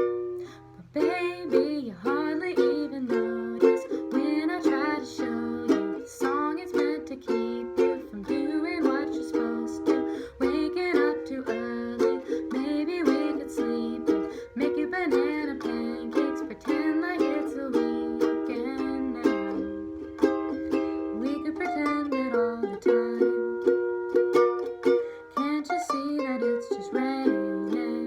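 Ukulele strummed in a steady rhythm, playing the chords of a song.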